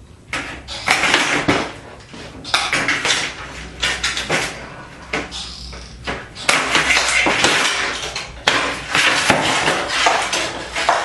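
Sheet-steel parts of a fluorescent light fixture clattering and scraping as it is taken apart by hand, in a run of irregular metal rattles and knocks.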